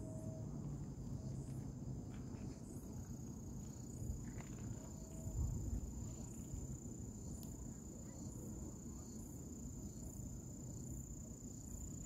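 Insects trilling steadily, a continuous high-pitched tone, over a low rumble.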